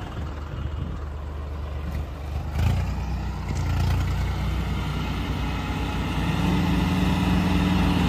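Diesel engines of two tractors, a John Deere 5210 among them, labouring under load as they pull against each other in a tug-of-war. The drone grows heavier about two and a half seconds in and louder again near the end.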